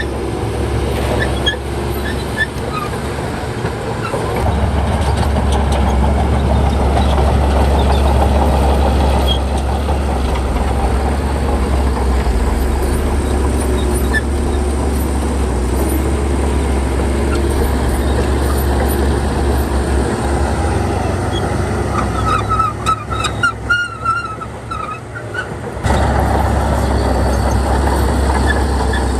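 Heavy diesel engine of earthmoving machinery running steadily under load, growing louder a few seconds in. About three-quarters of the way through the engine sound drops away for a few seconds and a run of high squeaks is heard, then the engine sound comes back suddenly.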